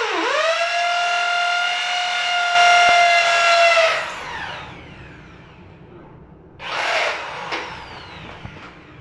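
Corded electric drill boring into ceramic wall tile: a high motor whine that dips and climbs as the trigger is worked at the start, then holds steady, turning louder and harsher just under three seconds in as the bit bites. It winds down with a falling whine about four seconds in, and a shorter harsh burst follows about seven seconds in.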